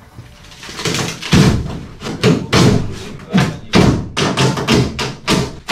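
Renovation work noise: an irregular run of heavy thumps and knocks, two or three a second, starting about a second in.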